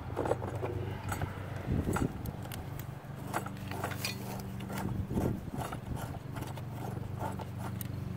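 A pipe wrench and then bare hands working a garden hose coupling loose from an outdoor spigot: irregular clicks, knocks and scrapes of metal on the threads. A steady low hum runs underneath.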